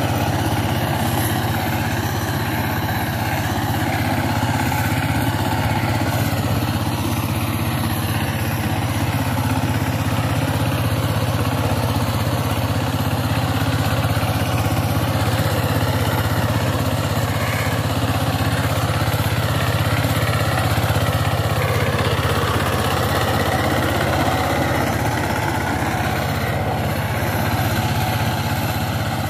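Single-cylinder diesel engine of a two-wheel power tiller running steadily under load while its rotary tiller works dry soil.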